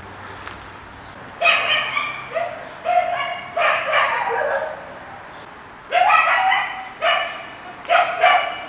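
A run of short, high-pitched animal cries, each under a second: four in the first half and three more near the end.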